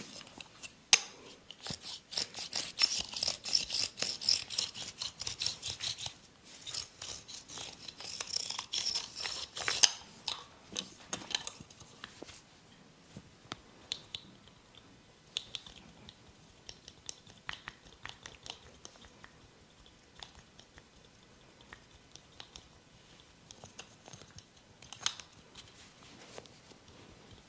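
Close-up massage sounds: fingers scratching and rubbing rapidly on hair and skin in two dense spells, then scattered soft clicks and taps. Sharp clicks about a second in and again near ten seconds are the loudest.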